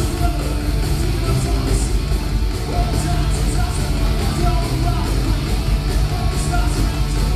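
Heavy metal band playing live: distorted electric guitars, bass and drums, with cymbals crashing several times over the steady wall of sound.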